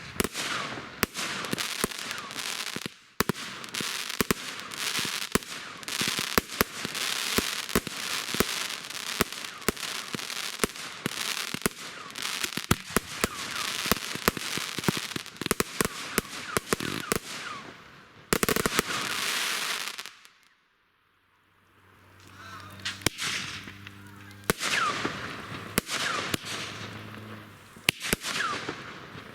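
Firework display: a rapid string of bangs and crackling mixed with whistles that fall in pitch. The barrage breaks off suddenly about two-thirds of the way through, then bangs and whistles start again.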